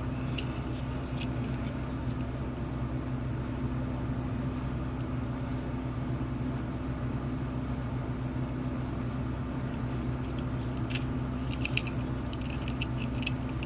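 Steady low mechanical hum with an even drone, and a few light clicks and taps about eleven to thirteen seconds in.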